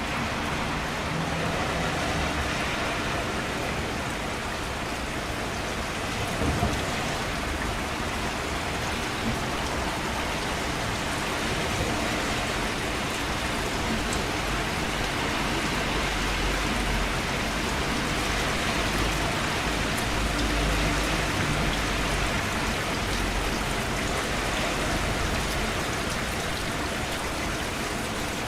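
Steady rain falling and pattering on surfaces, with one brief louder knock about six seconds in.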